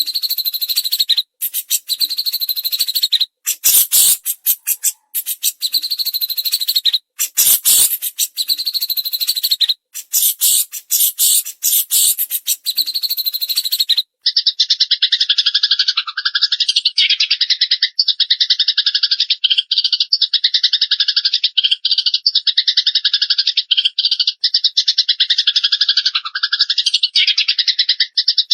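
Recorded songbird vocalisations of Eurasian tree sparrows in agitated 'fighting' chatter and of a cililin. For about the first half there is rapid, dry, high chattering in bursts with brief breaks; from about halfway on it becomes an unbroken fast, high trill.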